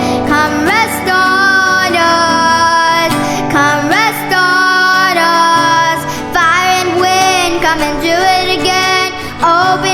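Worship song: a high voice, most likely a woman's, sings long sliding notes with no clear lyrics, over sustained instrumental backing.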